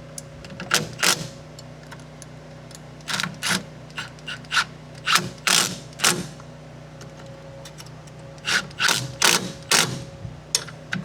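Hand ratchet wrench tightening brake bracket bolts, clicking in short runs of strokes with pauses between.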